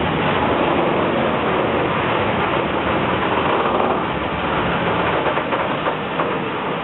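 Freight train of tank wagons running past on the line: a steady rush and rumble of wheels on rails, with a few rail clicks, easing off slightly after about four seconds.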